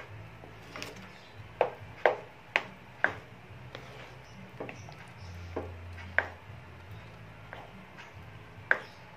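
Spatula knocking and scraping against a pan as thick mashed ube jam is stirred: irregular sharp taps, four or five close together in the first three seconds, then two more later.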